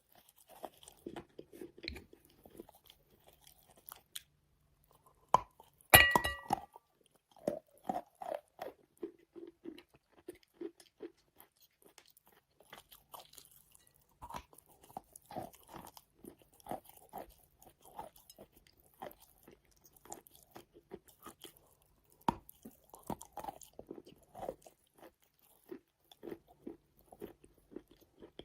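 Close-miked biting and chewing of wet chalk: soft, wet crunches at a steady chewing pace, with short pauses. A loud crunchy bite comes about six seconds in, and another sharp bite near twenty-two seconds.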